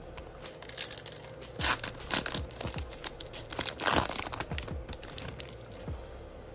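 Foil baseball-card pack wrapper being torn open and crinkled by hand, in a series of sharp crackling rustles, the loudest about four seconds in.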